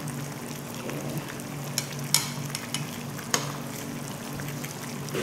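Spicy braised chicken stew (dakbokkeumtang) simmering in its pot on a tabletop burner, with a metal spoon clinking sharply against a bowl twice as rice is scooped in and mixed with the broth.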